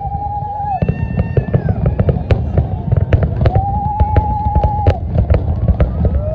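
Fireworks going off in rapid succession: many sharp crackling bangs over a constant low rumble of shell bursts. Twice a steady whistling tone is held for about a second.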